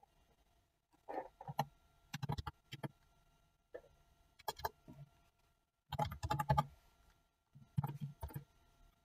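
Typing on a computer keyboard: several short bursts of key clicks with pauses between them.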